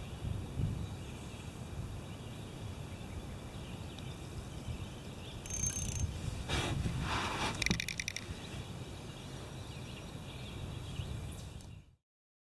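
Steady low rumble of wind buffeting the microphone in an open canoe on a river, with a short burst of clicking and rattling about six to eight seconds in, then the sound cuts off suddenly near the end.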